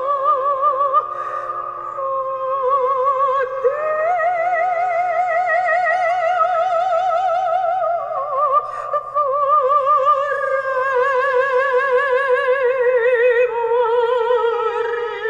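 Operatic singing with a wide vibrato and long held notes, played from an iPhone through a 3D-printed passive horn amplifier.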